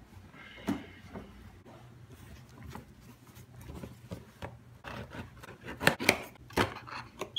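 Cardboard shipping box handled and sliced open with a blade: a knock about a second in as it is picked up, then scraping and rubbing of the blade along cardboard and tape, louder and quicker in the last couple of seconds.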